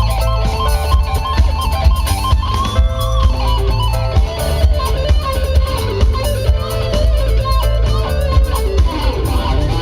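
Live band playing amplified rock music: an electric guitar carries a moving melody over a heavy bass line and a steady drum beat.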